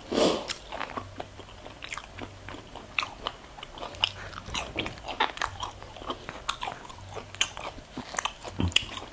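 Close-up chewing and crunching of crispy deep-fried pork mesentery (chicharon bulaklak), with many small crackles in quick succession.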